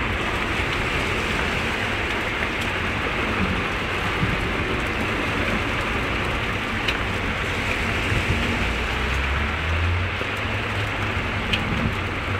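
Heavy rain pouring steadily onto a flooded street, with the low rumble of a car driving through the water swelling about eight seconds in.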